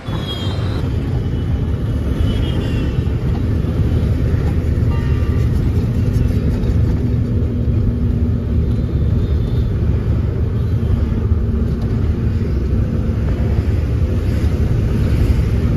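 Heavy truck driving at speed on a highway, heard from inside the cab: a loud, steady low rumble of the diesel engine and road noise.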